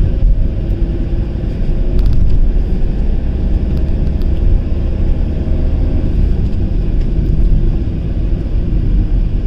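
Car driving, heard from inside the cabin: a steady low engine and road rumble with a faint constant hum.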